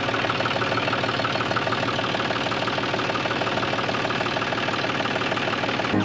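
Miniature DIY tractor running steadily, an even, fast engine-like chugging that keeps the same pace throughout.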